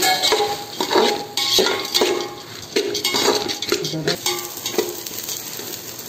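Steel slotted spoon stirring raw rice in ghee in a metal pot: repeated scrapes and clinks of metal on metal with the rustle of the rice grains. The strokes come about every half second and ease off in the second half.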